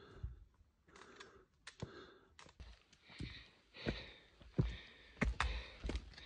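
Footsteps of a hiker on a rocky, root-covered forest trail: irregular thumps and clicks, about a dozen, with breathing in between.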